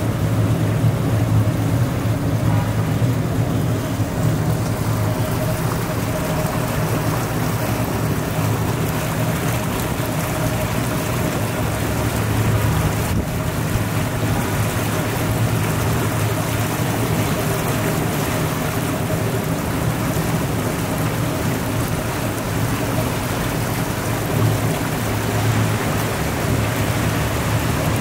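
Tour boat's motor running steadily: a low hum under an even rushing noise.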